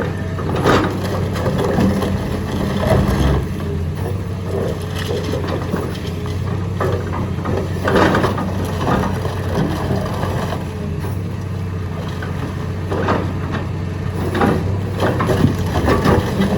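Excavator's diesel engine running steadily while concrete cracks and crunches under the machine in irregular bursts. The crunches are strongest about a second in, around the middle, and in a cluster near the end.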